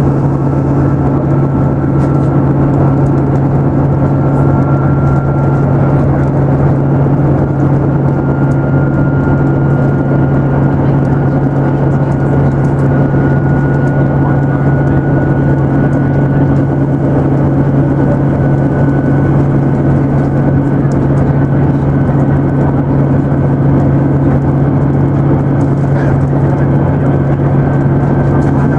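Interior of a British Rail Class 158 diesel multiple unit under way: a steady low drone from the underfloor diesel engine and running gear, with a faint high whine that rises slowly in pitch as the train gathers speed.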